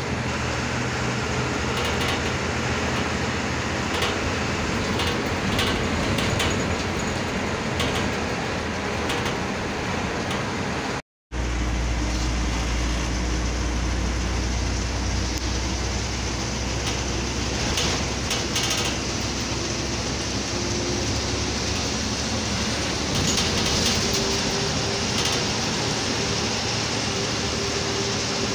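A bus engine running and road noise heard from inside the cab while the bus travels a winding hill road, with light rattles of loose fittings. The sound cuts out for a moment about eleven seconds in.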